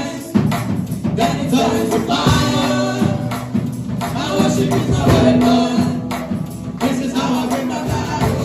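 Live gospel praise music: voices singing together over a band, with a tambourine shaking a steady beat.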